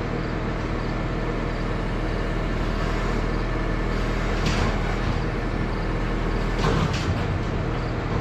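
Skid loader engine running steadily close by, with a couple of short bursts of noise about halfway through and again near the end.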